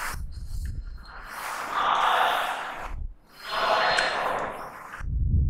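A whiteboard duster wiping across a whiteboard in long rubbing strokes, about two or three in all, with a dull low bump near the end.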